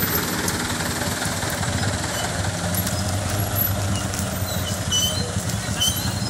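Large vehicle engine idling steadily with a low hum.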